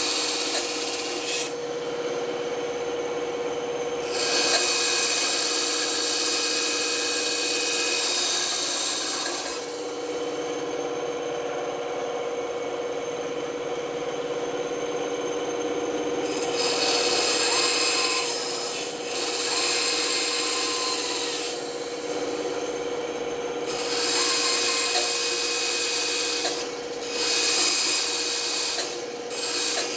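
Band saw running with a steady hum while its blade cuts wood in stretches of a few seconds, the cutting noise swelling and easing as the workpiece is fed into the blade and backed off.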